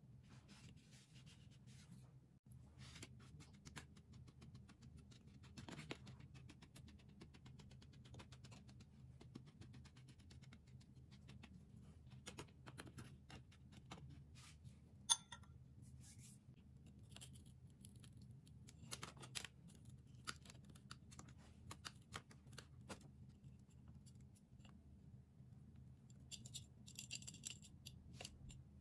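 Faint scratching of a metal spoon spreading and smoothing speculoos crumbs in a metal cake pan, with one sharp click about halfway through.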